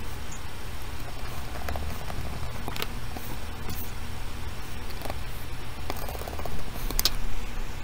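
A few light clicks and taps of small plastic parts being handled and fitted, over a steady low hum.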